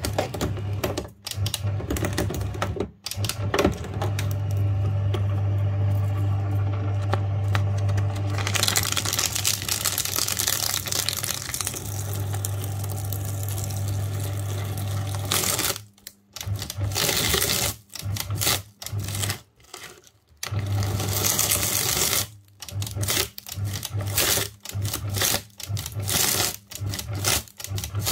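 Paper shredder (model 67Cs) motor running as it cuts through thin plastic film and an LCD panel from an old DVD player, with a louder, harsher stretch of cutting about a third of the way in. In the second half the motor keeps stopping and starting, cutting in and out about every second near the end.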